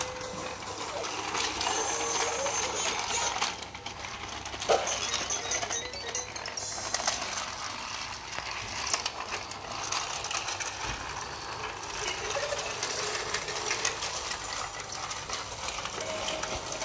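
Plastic toy rattling and clicking, with one sharp click about five seconds in, from a VTech Toot-Toot Drivers train station toy. Its electronic melody notes sound briefly at the start and again near the end.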